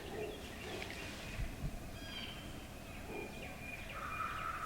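Wild birds chirping and calling in the woods, with two brief low thumps about a second and a half in and a steady, higher-pitched call starting near the end.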